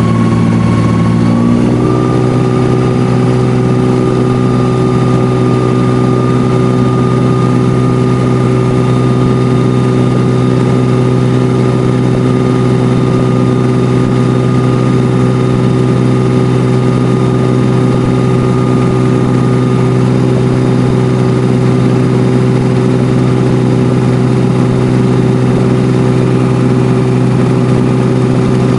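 Abra water taxi's engine running steadily under way, heard from on board; its pitch rises a little about two seconds in, then holds.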